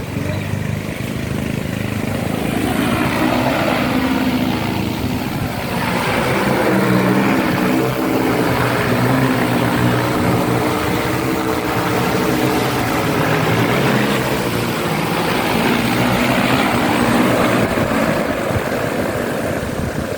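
Agricultural spraying drone flying. Its propellers make a loud, continuous buzzing hum whose pitch rises and falls several times as the rotor speeds change.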